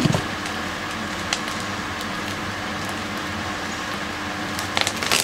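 Steady background hum and noise, with a few faint crackling clicks of gritty mineral cactus substrate as small cactus seedlings are pulled apart by hand.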